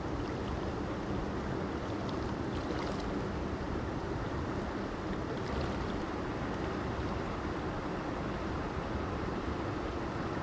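Mountain creek water rushing steadily over rocks, a continuous even wash close by.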